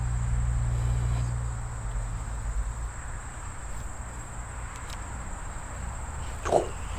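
Steady high-pitched drone of insects singing in summer, with a low rumble fading out over the first two seconds and one short, louder sound about six and a half seconds in.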